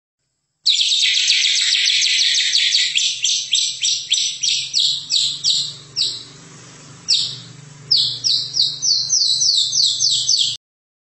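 White-rumped shama (murai batu, Medan type) singing a fast run of repeated down-sliding notes, about four a second, with a break of about a second just past halfway. The song cuts off suddenly near the end.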